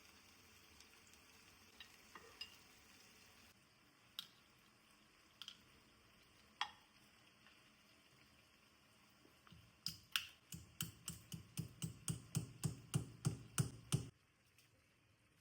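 Stirring in a bowl with a utensil. A few scattered clinks and taps come first, then a quick, even run of strokes, about four a second, lasting around four seconds before it stops abruptly.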